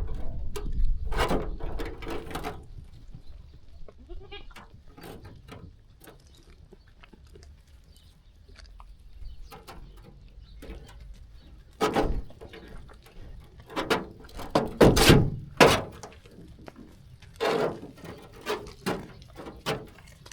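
Sheep bleating, a series of separate calls with pauses between them, several coming close together in the second half.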